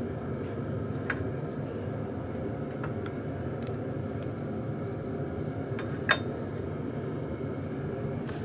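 Steady drone of running shop machinery, with about five light, sharp metal clinks of steel dies and kiss blocks being fitted onto a forging press.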